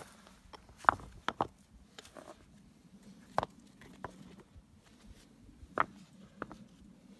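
Rocks being set onto a stone fire ring, knocking against each other in a handful of sharp, irregular clacks; the loudest comes about a second in.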